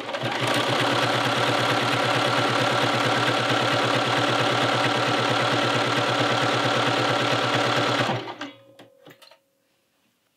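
Bernina sewing machine stitching steadily at speed through a knit neckband for about eight seconds, then stopping suddenly, followed by a few small clicks.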